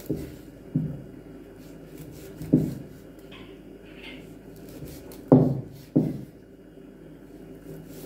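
Knife cutting through softened cow skin onto a round wooden chopping board: five dull knocks of the blade meeting the wood, irregularly spaced, the loudest two close together about five seconds in.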